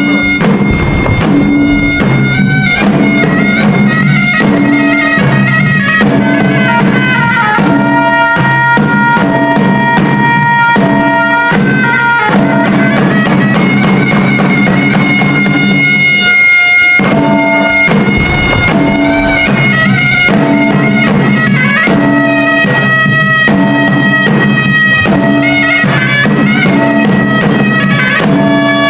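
Reed pipes playing a melody over steady held drone notes, with drums beating along. The tune breaks off briefly a few times.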